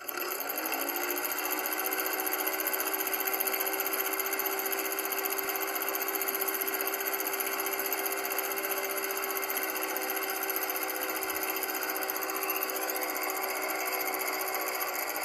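Film projector sound effect: the motor comes up to speed in the first second with a rising hum, then runs with a steady, fast mechanical clatter.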